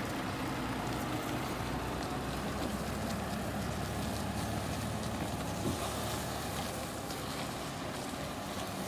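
2012 CAT TH407 telehandler's diesel engine running steadily as the machine drives off and turns, with one short knock a little past halfway.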